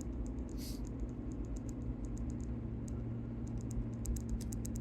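Chevy/GMC 6.5 turbo diesel engine running steadily as the truck drives, a low drone with a steady hum, with runs of fast light ticking over it in the second half.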